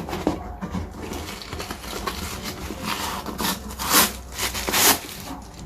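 Packaging paper rustling and crinkling as it is handled by hand, with several louder swishes in the second half.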